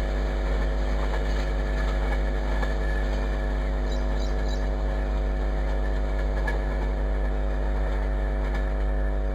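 A steady mechanical hum, like a machine or engine running without change, made of several fixed tones over a low rumble.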